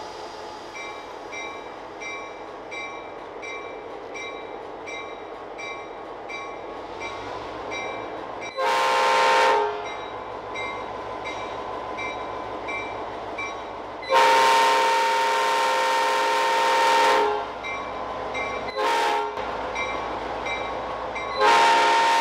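Diesel locomotive's multi-chime air horn sounding four blasts: one of about a second, one of about three seconds, a brief toot, then a long blast that is still going at the end. Under them a locomotive bell rings steadily about twice a second through the first half, and the diesel engine rumbles.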